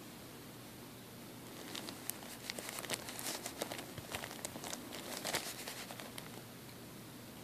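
Thin plastic soda bottle crinkling and crackling as it is handled and turned, a dense run of sharp clicks that starts about two seconds in and dies away after about four seconds.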